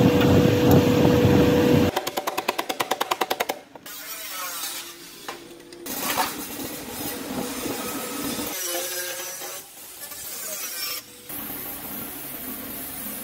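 Car body shop tool noise in quick cuts: a power tool running loudly for about two seconds, then a fast rattle of about nine strokes a second. After that come quieter workshop noises, and a spray gun hissing near the end.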